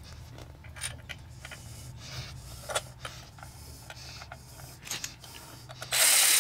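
Small metal clicks and rattles as bolts are fitted and started by hand in a motorcycle transmission outer cover. Near the end a cordless electric ratchet starts up suddenly, spinning a cover bolt in, and is by far the loudest sound.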